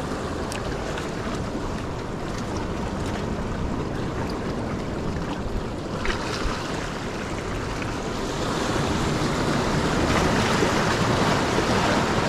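Sea surf washing in and out around shoreline rocks, with wind on the microphone. The wash grows louder about two-thirds of the way through as bigger waves break against the rocks.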